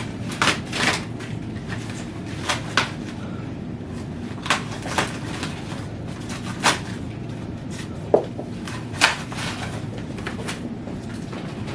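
Scattered light knocks and clicks of e-bike parts and tools being handled during assembly, a dozen or so sharp taps spread irregularly over a steady low background hum.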